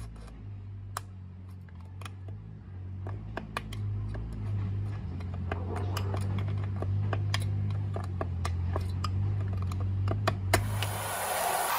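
Irregular light clicks and taps over a steady low hum; near the end a hiss starts.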